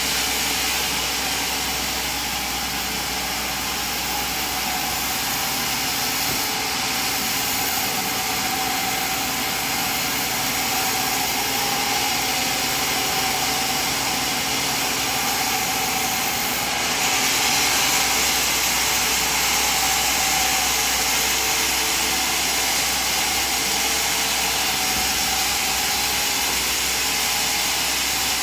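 Sawmill machinery running steadily: a continuous mechanical noise with a faint constant hum, getting a little louder and brighter about two-thirds of the way through.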